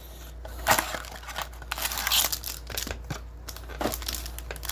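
Trading cards and their packaging being handled: irregular rustling and crinkling with sharp little clicks.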